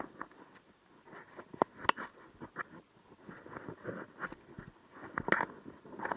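Irregular rustling and crackling with sharp clicks, like something rubbing and tapping against the microphone; no engine is heard running.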